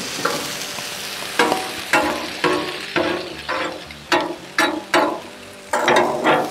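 Metal spatula scraping and knocking on the hot steel top of a Blackstone griddle about twice a second, each stroke ringing briefly, over sizzling food.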